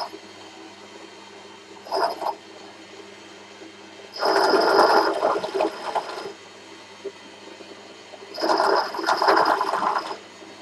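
Bench drill press running steadily while a 29 mm boring tool cuts into a cast-iron AM6 cylinder barrel's exhaust port. The spindle is set faster than suits this size of tool. The cutting noise comes in bursts as the tool is fed down: a short one about two seconds in, then two loud stretches of about two seconds each, around four and eight seconds in.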